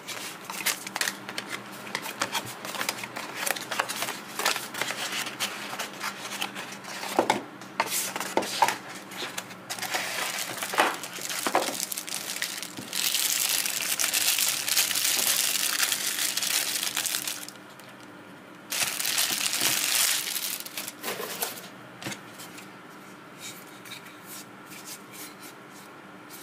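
Lens packaging being opened by hand: rustling and crinkling with small clicks and knocks from handling. About halfway through comes a loud spell of continuous crinkling lasting about four seconds, then a shorter one, before the handling turns quieter.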